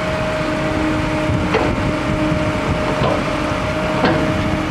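Water spilling from the open end of an exposed road culvert pipe onto gravel, under a steady engine hum and wind buffeting the microphone. Three sharp knocks cut through, about a second and a half in, at about three seconds, and about four seconds in.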